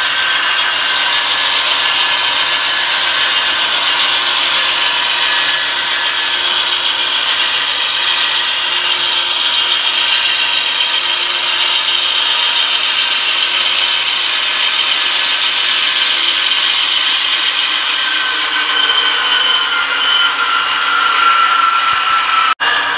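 HO scale model freight train rolling by: a steady rush and rattle of small metal wheels on the rails, with the locomotives' motors running. A faint whine comes in near the end.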